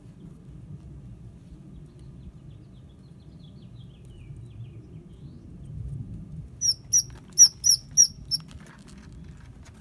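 Squirrel squeaking: a quick run of about six sharp, high-pitched squeaks about two-thirds of the way in, over the low rustle of nest material being pulled out of a car's engine bay by gloved hands.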